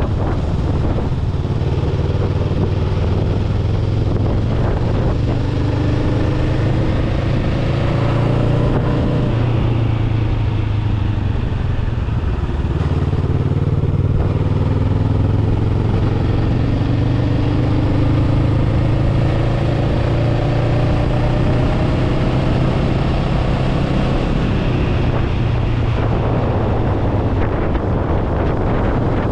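Honda Rebel 500's parallel-twin engine running under way, its pitch rising several times as it accelerates, with wind rushing over the microphone.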